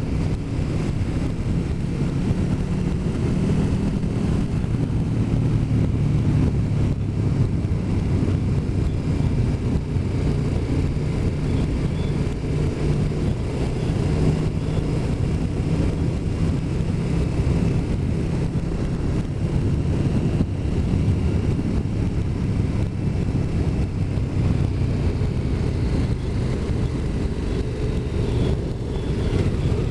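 Motorcycle riding along at a steady road speed: a constant rush of wind mixed with the engine's low drone, without breaks or sudden changes.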